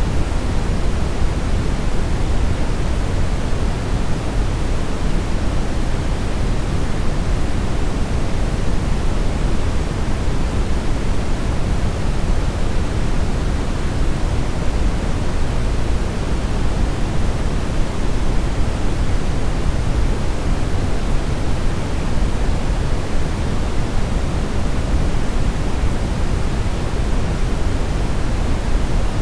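Steady brown noise: an even, unbroken hiss-rumble, heaviest in the low end and fading toward the treble.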